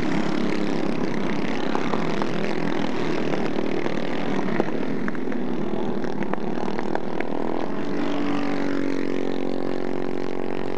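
Several four-stroke racing kart engines buzz steadily as a pack of karts runs round the track. Near the end one engine's even drone stands out more clearly.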